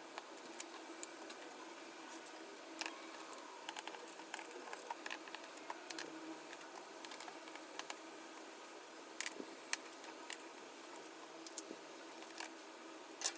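Faint scattered clicks and taps of small parts and tools being handled, over quiet room tone.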